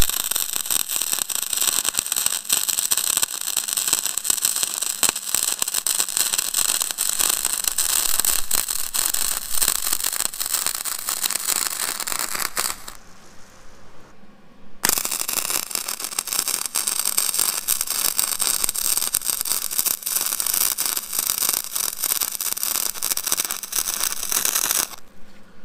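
Vulcan OmniPro 220 welder's arc crackling and sizzling as beads are laid on steel. It comes in two long runs of about thirteen and ten seconds, with a two-second break between them.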